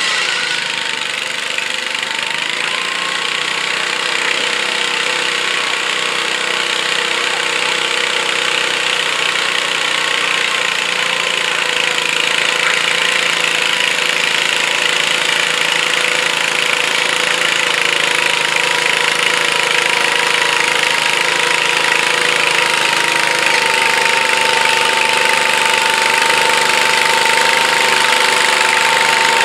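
Garden pulling tractor's engine running steadily under load as it drags a weight-transfer sled down the track, growing gradually louder as it comes closer.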